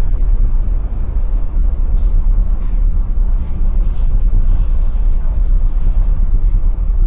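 Strong wind buffeting the microphone, a loud, steady low rumble over the rush of rough sea against a container ship's hull.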